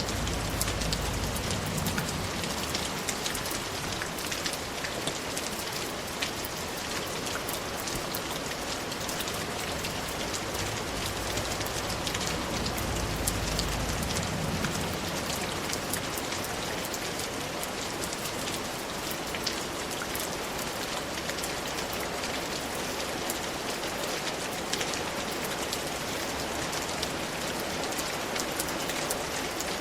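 Steady rain falling, a dense even hiss with individual drops ticking through it. A low rumble swells briefly near the start and again about halfway through.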